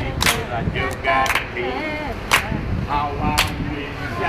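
Hand claps keeping a steady beat, about one sharp clap a second, with a voice in between.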